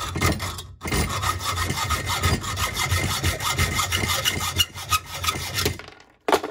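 Hacksaw cutting through a metal toilet flange bolt clamped in a vise, in rapid, regular back-and-forth strokes with a short break about a second in. The sawing stops about a second before the end, followed by a brief knock.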